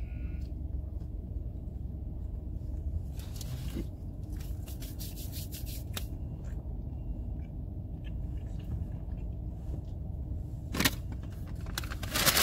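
Steady low rumble of a car cabin, broken by scattered short rustles and clicks of food and wrapper handling. Near the end comes a louder crinkling of a paper takeout bag being picked up.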